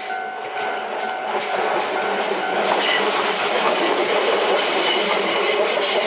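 Level-crossing warning bell ringing in even repeating pulses. About two seconds in it is drowned out as a Shizuoka Railway 1000 series electric train runs over the crossing, its wheels rumbling and clacking over the rail joints.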